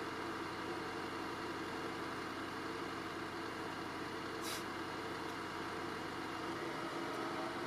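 Diesel engine of a tracked pile-driving rig idling steadily, with a short hiss about four and a half seconds in.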